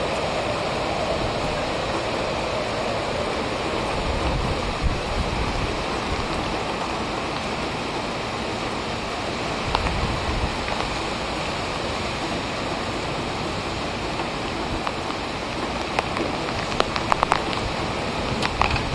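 Hurricane-force wind and driving rain blowing steadily, with a quick run of sharp clicks or knocks near the end.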